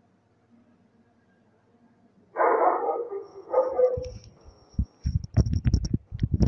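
A dog barks twice, a longer bark then a short one, then comes a run of irregular dull low knocks and clicks.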